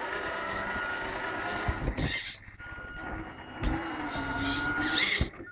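Tamiya 1/14 RC semi truck running, with a steady thin high tone over a low rumble. Two short bursts of higher-pitched noise come about two seconds in and near the end.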